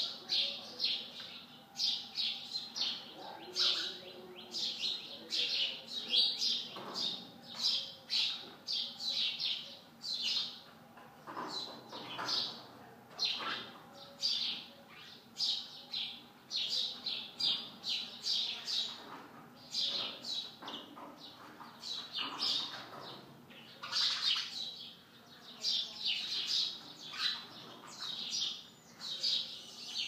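House sparrows chirping repeatedly from their nests, short high chirps a few times a second without a break.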